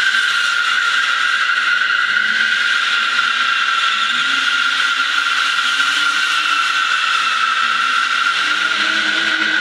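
Car tyres squealing without a break as the car drifts on a smooth concrete floor, one high screeching note holding steady, with the engine's note wavering faintly underneath.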